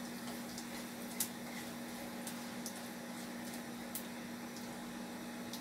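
Mustard and cumin seeds sizzling in hot oil, with a few sharp pops scattered through, over a steady low hum.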